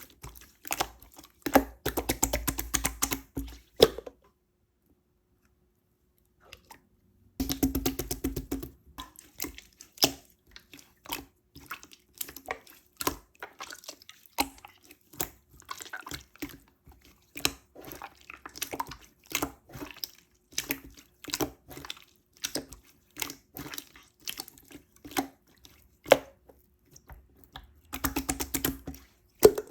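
Hands playing with slime: a dense, irregular run of small sharp clicks and pops, stopping for about three seconds a few seconds in, then carrying on.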